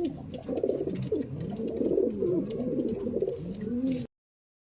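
Pigeons cooing: repeated low, rising-and-falling coos, several overlapping. The sound cuts off suddenly near the end.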